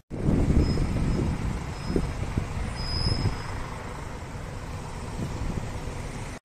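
Outdoor urban background noise, mostly a low rumble, with a thin high tone coming and going in the first half.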